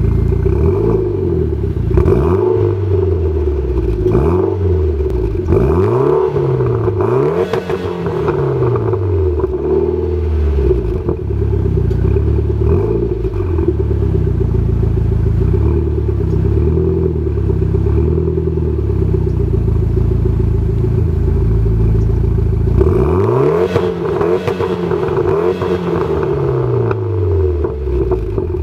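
Exhaust of a Mitsubishi Lancer Evolution X GSR's turbocharged 2.0-litre four-cylinder engine, revved in quick blips while the car stands still. The revs come in a series at first, the engine settles to a steadier note for about ten seconds, and then it is blipped again near the end.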